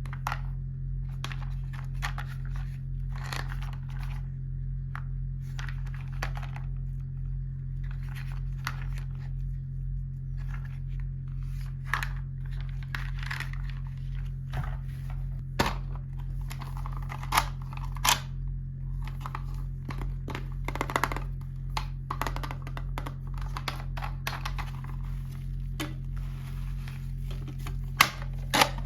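Hands unboxing small plastic toy miniatures: scattered clicks, taps and crinkly rustling of packaging, a few sharper snaps near the middle and the end, over a steady low hum.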